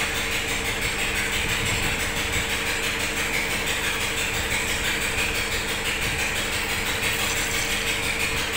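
Diesel engine running steadily at idle, an even mechanical hum that holds level throughout.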